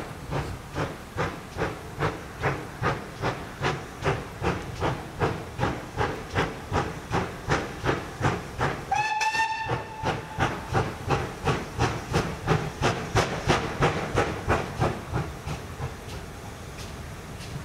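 Ex-GWR Hall class 4-6-0 steam locomotive working a train, its exhaust beats steady at about two and a half to three a second. About nine seconds in it gives one short whistle blast. The beats fade out near the end, leaving a steady rushing noise.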